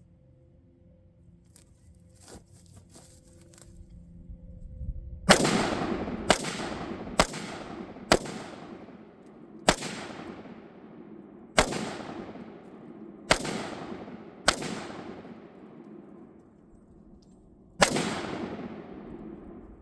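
Palmetto State Armory AR-15 rifle firing nine shots in an uneven string, one to three seconds apart, each followed by a long echo dying away. A few faint clicks come before the first shot.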